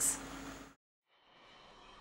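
The last hissed 's' of a spoken word, then a moment of dead silence at an edit cut, then a faint, even hiss slowly fading in.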